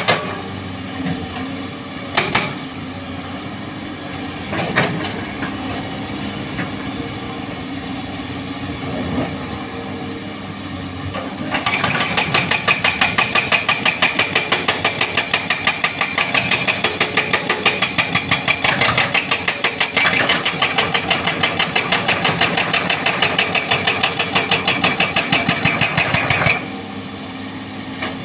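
Doosan crawler excavator's hydraulic breaker hammering hard rock over the steady running of its diesel engine. A couple of single blows come in the first few seconds, then the engine runs alone for several seconds. About a dozen seconds in, the breaker starts a fast, even stream of blows that lasts about fifteen seconds and stops shortly before the end.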